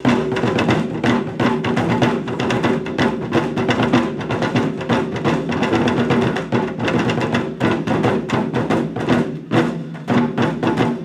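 Drum ensemble playing large barrel drums with wooden sticks in unison, a rapid, driving run of strikes with a deep resonant boom under the sharper stick hits.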